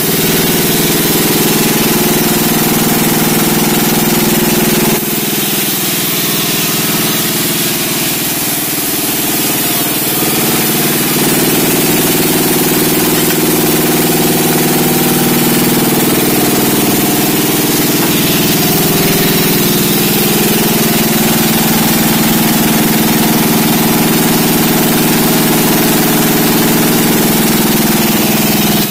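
Sawmill machinery running as it saws a large log: a steady engine drone with a high hiss over it. The level dips briefly about five seconds in, and the drone changes pitch slightly around eleven seconds.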